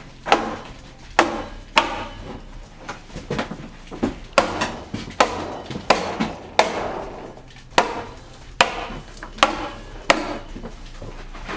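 A hammer tacker driving staples through polyethylene vapour barrier into wooden studs: about a dozen sharp strikes, roughly one a second.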